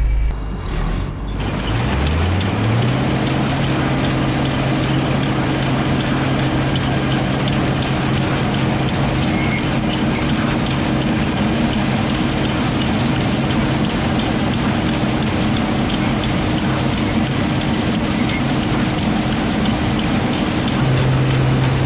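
Combine harvester starting to harvest soybeans: after a brief dip, a rising whine as the machinery spins up about two seconds in, then a steady hum with continuous mechanical clatter.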